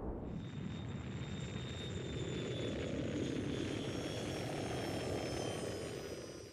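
Cartoon sound effect of a flying car's spaceship engine: a steady rushing drone with thin high whines that slowly fall in pitch, cutting off suddenly near the end.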